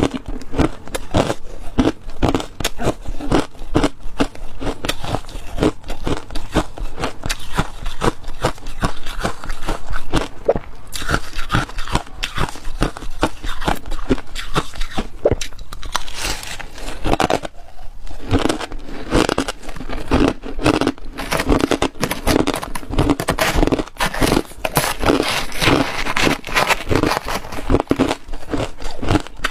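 Ice being bitten and chewed: a rapid, continuous run of crisp crunches, with a brief pause a little past the middle.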